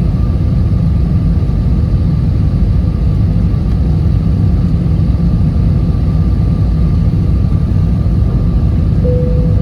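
Airliner cabin noise: a steady, loud low rumble of engines and airflow heard from inside the passenger cabin, with a faint steady whine. A brief higher tone sounds about nine seconds in.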